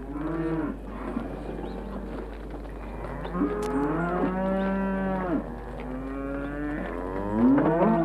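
Cattle mooing: several drawn-out calls, the longest lasting about two seconds in the middle.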